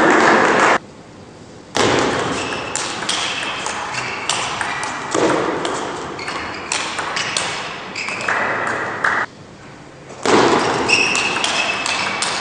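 Table tennis rallies: the celluloid ball clicking back and forth off rubber bats and the table in quick succession, over steady hall noise. The sound drops out briefly twice, between points.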